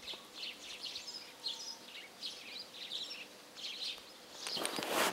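Small birds chirping in short, repeated calls. Near the end a rising rush of noise comes in.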